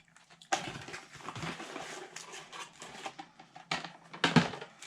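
A box of O-Pee-Chee hockey card packs and its wrappers being handled: crinkling and rustling of packaging, with a couple of sharp taps near the end.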